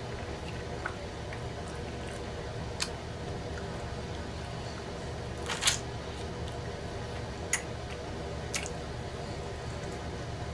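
Close-up mouth sounds of a person eating a sauced chicken wing: a few short, sharp wet smacks of lips and mouth, the loudest pair about five and a half seconds in, over a steady low background hum.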